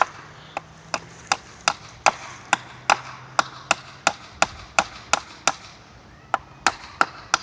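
A hammer driving a nail into a wooden 2x4 brace: about nineteen steady blows, roughly three a second, with a short pause about five and a half seconds in before a few more strikes.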